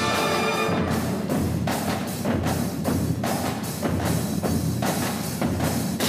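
A concert band of brass and percussion playing, with trombones, tubas and trumpets over a steady, regular drum beat.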